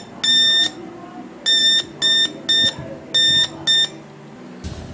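High-pitched electronic beeps played through a loudspeaker driver, six short tones in an uneven rhythm. Near the end there is a sudden thump, then a low hum.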